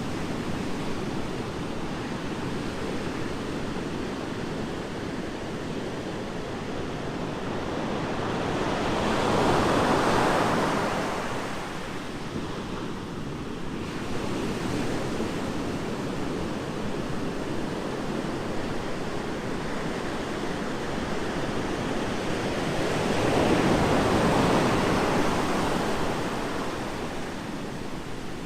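Ocean waves washing onto a beach: a steady surf hiss that swells twice as waves break, about ten seconds in and again near the end.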